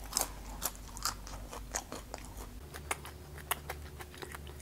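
Close-miked chewing of a crunchy grilled cicada: irregular sharp crunches and clicks, several a second.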